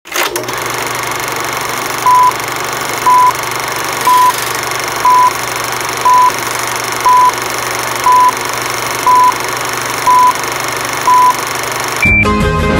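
Old film countdown leader sound effect: a steady projector-like whir and hiss with a low hum, with a short beep each second, ten in all. Near the end a single higher beep sounds and music starts.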